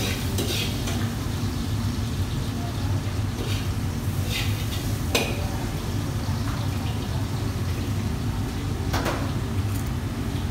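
Steady low rumble of a commercial kitchen's wok station, with a handful of short metal clinks and clanks of a ladle against woks and pans, the sharpest about five and nine seconds in.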